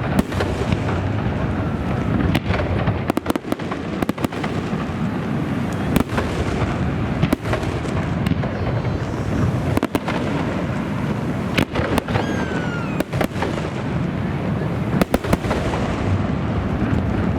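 Aerial fireworks display: many sharp bangs and crackles over a continuous rumble of shell bursts, with a short falling whistle about twelve seconds in.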